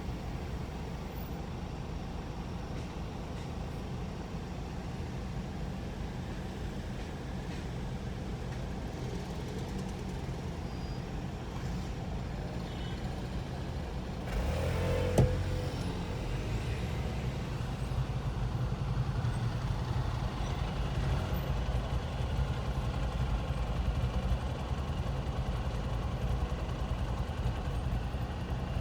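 Steady rumble of city road traffic, swelling about halfway through with a louder passing vehicle and a single sharp click, then staying a little louder.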